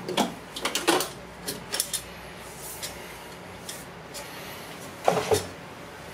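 Metal cover of a marine electronics processor box being taken off and handled: a quick run of clicks and knocks in the first two seconds, a few scattered taps, and another knock about five seconds in.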